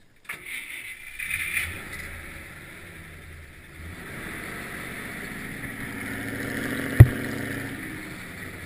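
Off-road vehicle engine running steadily, heard from inside the cab while driving through snow, with a single sharp knock about seven seconds in.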